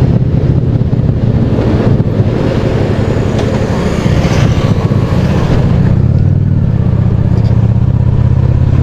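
Honda Shadow V-twin motorcycle engine running steadily while riding, a low rumble heard over rushing wind and road noise.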